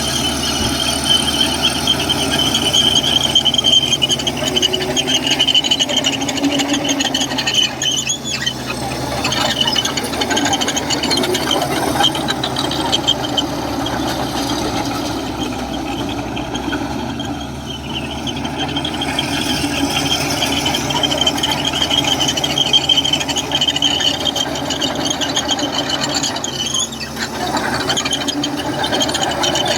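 Komatsu crawler bulldozer working, its diesel engine running with a steady high squeal. The squeal eases briefly about eight seconds in and again around the middle.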